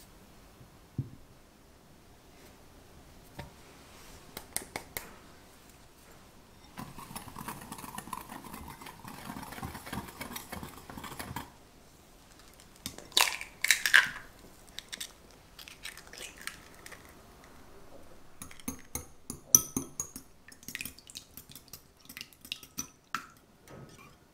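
Dry sugar and cornstarch poured into a glass bowl as a grainy hiss lasting a few seconds, then two loud clinks of glass, then a small wire whisk beating egg yolks in a small glass bowl, the wires clicking rapidly against the glass.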